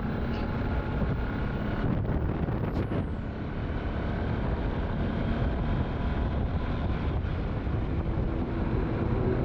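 Steady vehicle running noise on the road, with wind rushing on the microphone.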